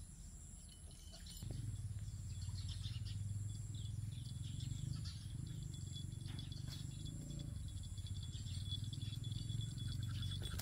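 Outdoor yard ambience: faint bird chirps over a steady high insect drone. About a second and a half in, a low rumble on the microphone comes in and becomes the loudest sound.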